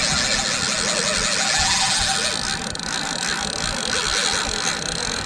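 Boat engine running steadily under a constant hiss.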